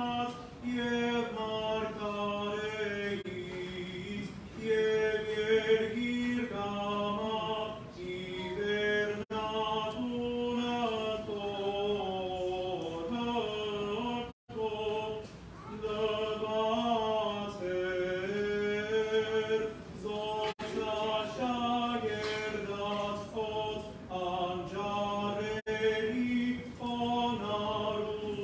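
Men's voices chanting an unaccompanied Armenian church hymn, a slow melody with long ornamented turns on each syllable. The sound cuts out for an instant about halfway through.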